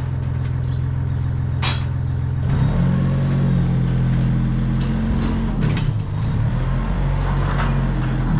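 Diesel engine of a compact wheel loader running, revving up about two and a half seconds in and settling back down near six seconds. A few light metal clanks sound over the engine.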